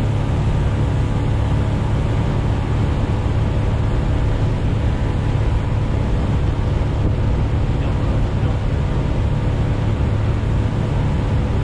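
Motorboat engine running steadily at cruising speed, a constant low hum mixed with the rush of water and wind past the hull.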